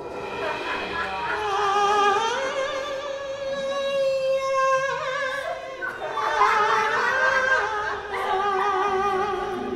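Music with operatic singing cutting in suddenly: a voice holding long notes with a wobbling vibrato.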